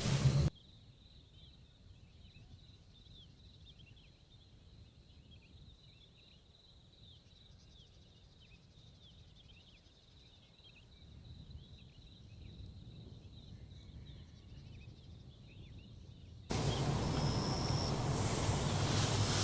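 Faint high-pitched chorus of chirping insects, steady with many quick chirps. About three seconds before the end it cuts abruptly to loud, steady rushing noise of heavy rain.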